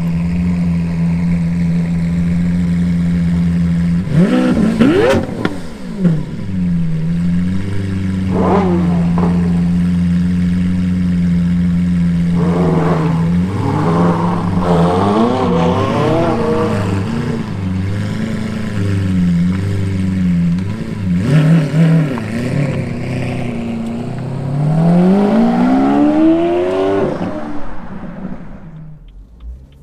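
Performance car engine idling and revved in repeated blips, with a longer climbing rev near the end before the sound drops away.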